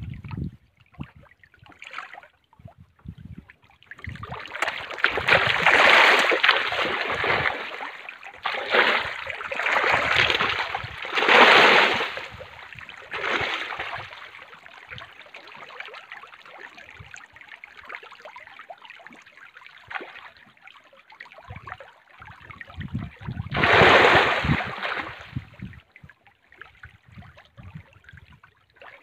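Water splashing and churning as a dense crowd of farmed fish thrash at the surface of a lake fish cage. It comes in loud bouts, about four seconds in, twice around ten to twelve seconds, and again near the end, with quieter sloshing in between.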